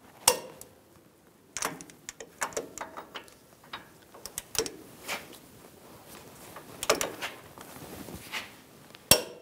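Torque wrench tightening the brake caliper bracket bolts to 130 ft-lb: scattered metallic ratchet clicks and taps, with sharp single clicks about a third of a second in, around seven seconds in and just before the end.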